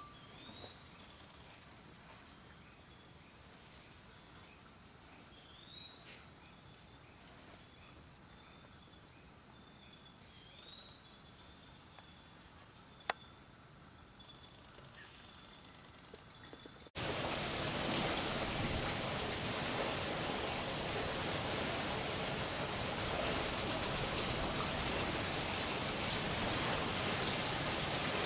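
Tropical insects, crickets or cicadas, keep up a steady high-pitched drone, with short pulsing trills about a second in, around eleven seconds in, and near the sixteen-second mark. Faint rising chirps sit underneath, and there is a single sharp click around thirteen seconds. About seventeen seconds in the sound cuts abruptly to a louder, steady rushing noise, like rain or running water, that lasts to the end.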